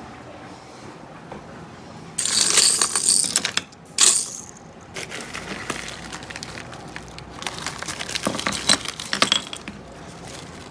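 Handling noise at a cluttered workbench: two loud rustling rushes early on, then a run of small clicks and rattles as tools and packaging are moved and a padded mailer envelope is picked up.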